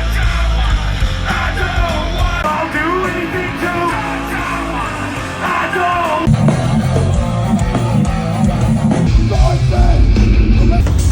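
Loud punk rock music: a singer over electric guitar and a full band. About six seconds in the music shifts to a heavier passage with more weight in the low end.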